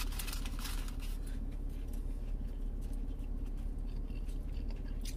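Close-miked chewing of a chicken nugget, with faint wet mouth clicks and smacking, over a steady low hum.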